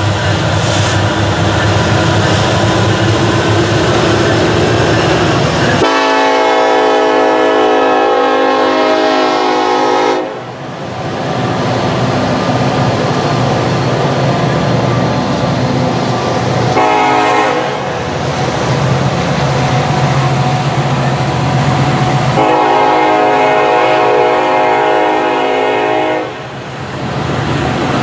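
Freight train led by a Kansas City Southern SD70ACe diesel passing close by: locomotive rumble, then freight cars rolling past with wheel clatter. The lead unit's Nathan K5LLA five-chime horn sounds a long blast about six seconds in, a short one around the middle, and another long blast near the end.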